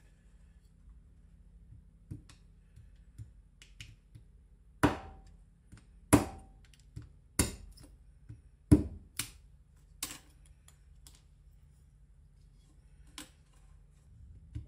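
Freshly sharpened Japanese kitchen knife chopping through a wooden pencil onto a wooden board: a string of about eight sharp knocks, the loudest between about five and ten seconds in, a test of the blade's sharpness.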